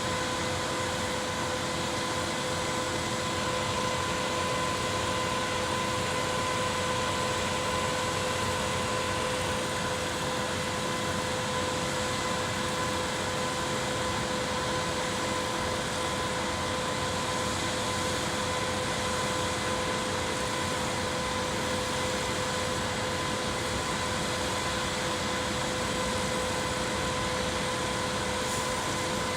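A concrete pump's engine running steadily: an even mechanical drone with a constant hum, no change in pitch or level.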